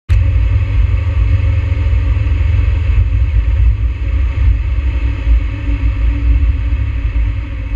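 Mazda Miata (NB) driving on a wet road, heard from inside the cabin: a loud, steady low rumble of engine and road noise, with a hiss of tyres on water above it.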